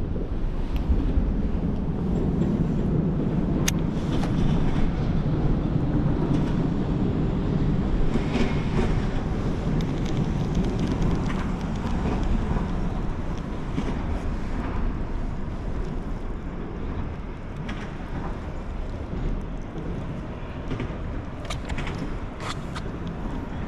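A boat under way on the lake: a steady low rumble of motor, rushing water and wind, easing off somewhat in the second half.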